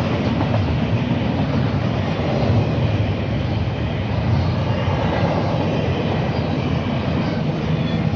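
A train passing at close range: a steady, loud rumble of railcars rolling on the track.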